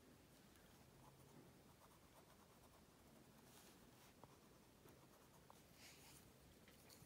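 Near silence, with two brief, faint scratches of a colored pencil on an index card, about halfway through and near the end.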